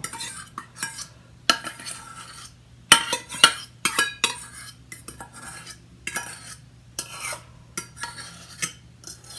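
A metal fork scraping and clinking against stainless steel mixing bowls in a run of short, irregular strokes, as dressing is scraped out of one bowl into another. A faint steady hum runs underneath.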